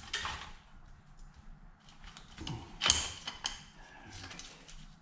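Scattered metal clicks and scrapes from a Yamaha Raptor 350's cylinder head being rocked loose off the cylinder, with one sharp metallic clank about three seconds in that rings briefly.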